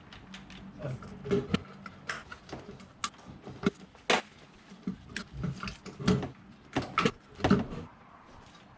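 Irregular clicks and knocks of hand tools and engine parts being handled while the intake plenum is being unbolted, with the loudest knocks about four seconds in and near the end.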